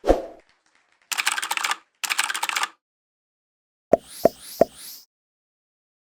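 A string of short sound effects: a pop, then two rapid clattering rattles, then three quick clicks each with a rising swish.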